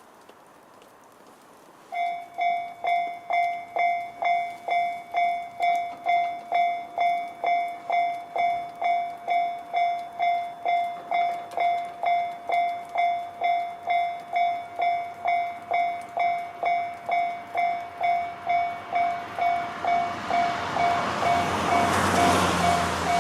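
Level-crossing warning bell, the JR standard electronic tone, starts about two seconds in and rings steadily at a little over two strikes a second. Near the end the running noise of an approaching E131-series electric train rises beneath it.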